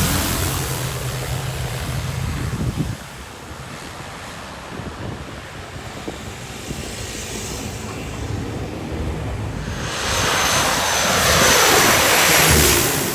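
A propeller aircraft passing close by: its noise swells from about ten seconds in and drops in pitch as it goes past near the end. Before that, a low engine hum fades out about three seconds in, with wind in the background.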